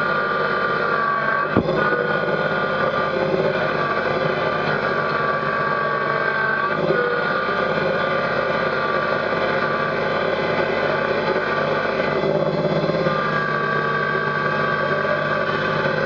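Kubota BX sub-compact tractor's three-cylinder diesel engine running steadily, with a higher whine that rises in and fades out twice. There is a single sharp knock about a second and a half in.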